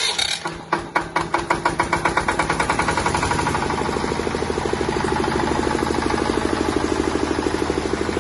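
A 7.5 kVA Bajaj diesel generator engine just catching after a start. Its firing strokes come as separate knocks at first and speed up over the first three seconds, then settle into steady, even running.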